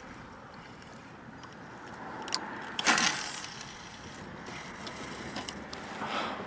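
A fishing rod and reel being handled in a kayak: a few light clicks and knocks, and one loud whoosh about three seconds in that sweeps from high to low as the rod is swung.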